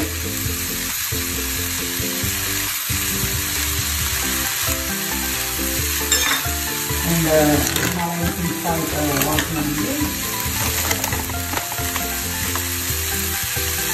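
Mixed vegetables and greens sizzling steadily in a nonstick frying pan over a gas burner, stirred now and then with a silicone spatula.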